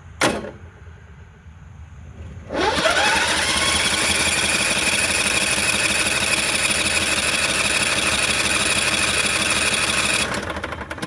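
A sharp click, then the Briggs & Stratton standby generator's electric starter cranking the propane engine for about eight seconds, the pitch rising as it spins up, before it stops; the engine turns over but never fires. The owner suspects it is not getting any fuel.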